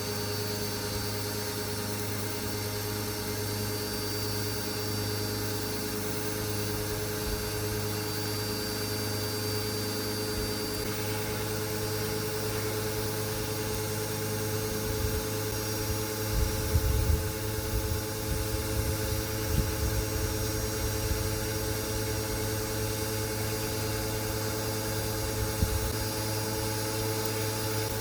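Small pressure washer running steadily, its motor and pump humming under a spray hiss, with a few irregular low bumps about halfway through.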